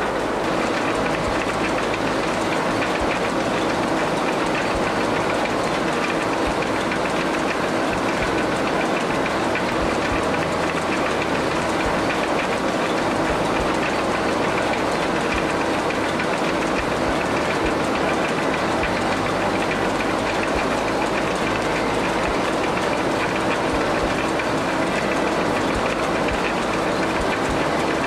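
Vintage sawmill in full operation: a large circular saw cutting timber, with the mill's machinery, powered by a single-cylinder Ruston Hornsby diesel, running behind it. A loud, steady, dense clatter and rattle throughout.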